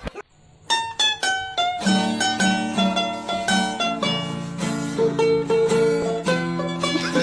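Background music played on plucked strings, like a mandolin or ukulele: single notes picked out at first, then a fuller tune with a steady bass line from about two seconds in.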